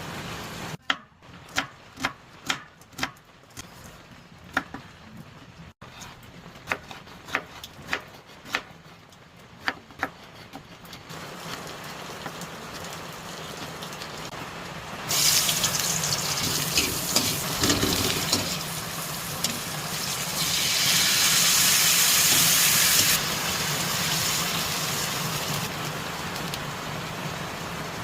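A knife striking a cutting board about twice a second as ingredients are chopped. Then, about fifteen seconds in, food starts sizzling in hot oil in a pan, loudest a few seconds later and easing off near the end.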